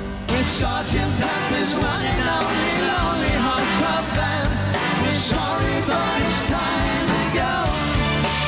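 Live rock band playing with a male lead vocal, drums and cymbal crashes. The song breaks in suddenly just after the start, where a held chord ends.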